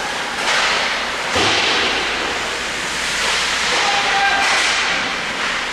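Ice hockey skates scraping and carving on rink ice, several scrapes one after another, with a low thud about one and a half seconds in.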